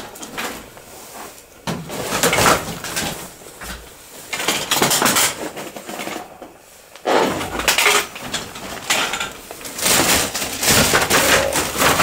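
Debris and hard objects clattering as they are knocked about and trodden on, in several bouts that grow louder and nearly continuous from about seven seconds in.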